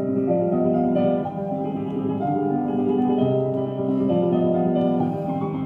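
Instrumental music from a radio station playing through the restored 1968 Magnavox Astrosonic stereo console's valve tuner/amplifier and speakers, held notes changing about every half second.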